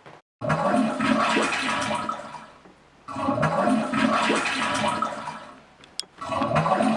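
Sampled toilet flush played back three times, about three seconds apart; each rush of water starts abruptly and fades away.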